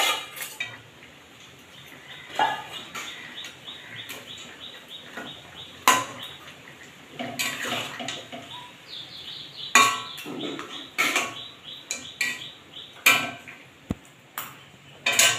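Spatula scraping and clinking against a steel kadai while stirring chunks of fried fish and potato in a curry. There are irregular sharp clinks every few seconds, with softer scrapes between them.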